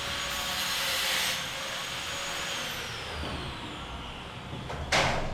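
Power tool cutting the metal ceiling framing with a high whine, its pitch falling as it winds down partway through. A sharp snap about five seconds in.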